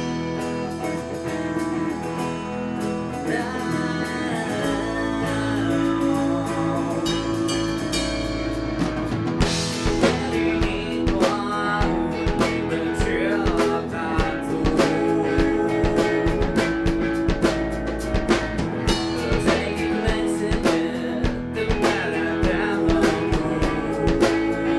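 Live rock band playing a song with guitar and drum kit, and a voice singing. About ten seconds in, a cymbal crash comes and the drums play fuller.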